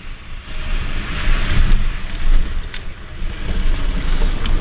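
Road noise inside a moving pickup truck's cab: a steady low rumble from the engine and tyres with a hiss over it, and a couple of faint clicks.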